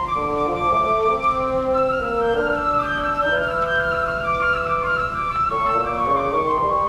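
Live woodwind duet: a bassoon plays a lower moving line of notes beneath a higher woodwind melody.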